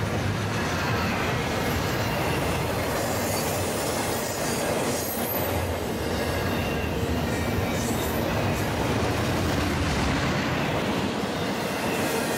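Double-stack intermodal freight train of container-laden well cars rolling past, a steady rumble and rattle of steel wheels on the rails. A faint high wheel squeal comes in around the middle.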